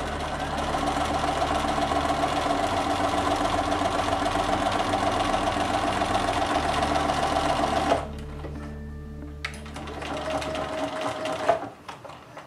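Bernina electronic sewing machine stitching a seam at an even, steady speed, stopping abruptly about eight seconds in; a few sharp clicks follow.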